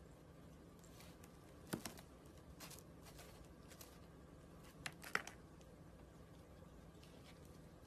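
Quiet room tone with a low steady hum and a few short clicks or taps: a pair about two seconds in and a cluster about five seconds in.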